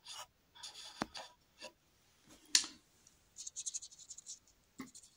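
Paintbrush dabbing and scraping across a canvas with acrylic paint: a run of short scratchy strokes, with one sharper, louder scrape about two and a half seconds in and a soft knock near the end.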